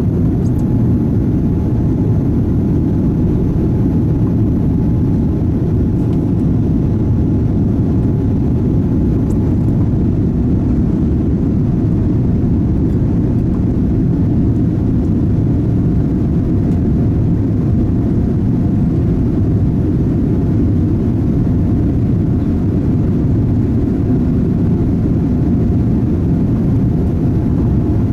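Steady low rumble of a Boeing 787 Dreamliner's cabin in flight: engine and airflow noise heard from inside the passenger cabin.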